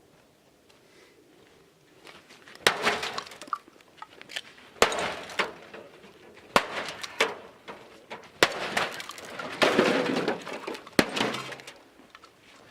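A chopping tool smashing into a shot-up microwave oven: about five hard blows a couple of seconds apart, each with glass breaking and debris clattering.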